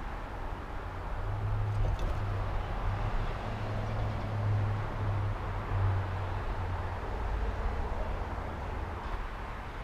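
Low engine hum of a passing motor vehicle, swelling about a second in and fading out near the end, over steady outdoor background noise.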